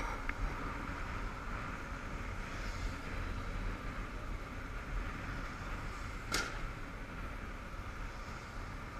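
Motorcycle riding at town speed, heard from a helmet-mounted camera: steady wind and road noise over the low rumble of a Honda CBF500's parallel-twin engine. A single sharp click comes about six seconds in.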